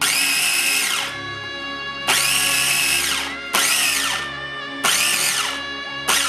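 Electric food processor pulsed five times, in bursts of about a second, chopping a green herb-and-nut pesto paste; each burst ends with a falling whine as the motor spins down.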